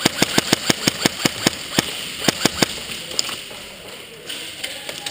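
Airsoft guns firing a quick string of about a dozen sharp shots over the first two and a half seconds, then only a few fainter pops.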